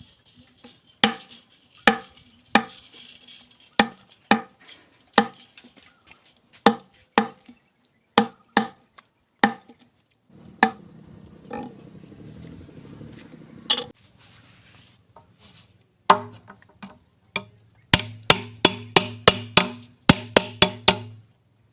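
Knife chopping on a cutting board in sharp, evenly paced strokes, with a stretch of steady low noise in the middle and a quick run of rapid chops near the end.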